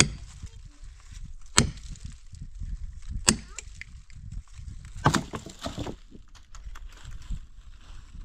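Axe chopping wood: four sharp strikes, one about every second and a half to two seconds.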